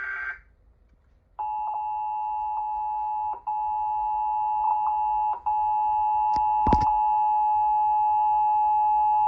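Emergency Alert System attention signal on a TV: a steady two-tone beep that starts about a second and a half in and holds, cutting out briefly twice as the glitchy antenna reception drops. There is a sharp click about two-thirds of the way through. The opening fraction of a second is the end of the buzzy EAS data-header burst.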